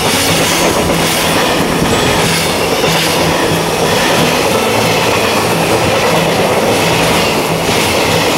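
Container wagons of a freight train rolling past close by: a loud, steady rumble and clatter of steel wheels on the rails.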